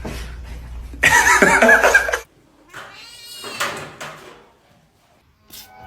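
A cat yowls loudly with a wavering pitch for about a second, then gives a shorter, fainter meow.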